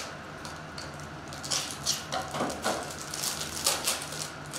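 Foil wrapper of a Star Wars Masterwork trading card pack being opened by hand, crinkling in irregular bursts from about a second and a half in.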